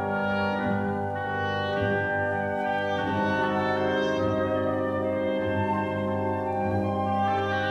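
Orchestral music led by brass, holding long sustained chords that change every second or two.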